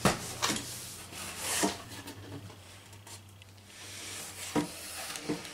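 Cardboard box being handled and opened: rubbing and scraping of cardboard with a few sharp knocks.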